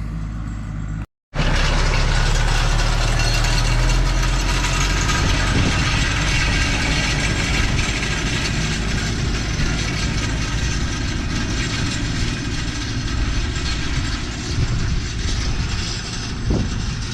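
Landini tractor's engine running steadily under load as it pulls a homemade grass harrow across wet ground. The sound breaks off briefly about a second in and resumes loud.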